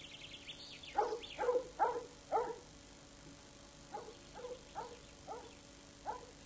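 A dog barking in short yaps, a run of four about a second in, then a fainter run a couple of seconds later, over soft background music.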